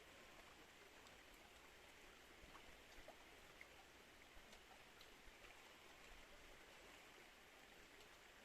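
Faint, steady flow of river water, with small drips and splashes ticking here and there.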